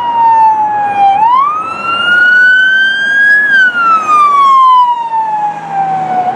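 Loud wailing siren of a fire department SUV. The pitch dips slightly, climbs for about two seconds, then falls slowly over about three seconds.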